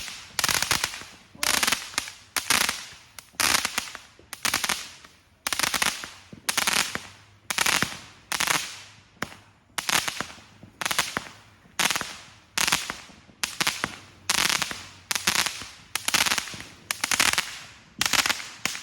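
Phantom Fireworks multi-shot firework cake firing shot after shot, a sharp bang about once or twice a second, each trailing off briefly.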